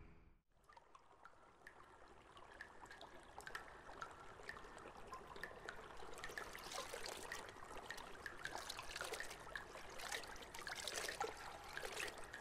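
Trickling water with many small drips, fading in out of a brief silence and slowly growing louder, like an underground ambience effect.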